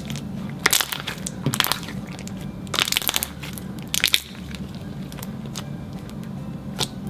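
Clear slime with a store-bought slime mixed in, being squished and folded by hand: about four short bursts of crackling air-bubble pops over a low steady hum.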